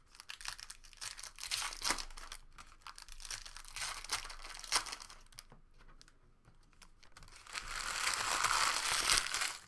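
Crinkling plastic wrapping of trading-card packs being handled, with a run of short crackles, then a longer tearing rustle near the end as the wrapper is torn open.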